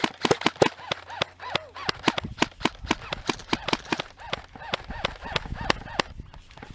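Airsoft guns firing a rapid, irregular string of sharp cracking shots, about six a second, thinning out near the end.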